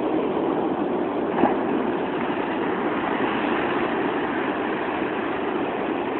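Shallow surf washing and foaming over the shore, a steady rushing noise, with a brief sharp knock about one and a half seconds in.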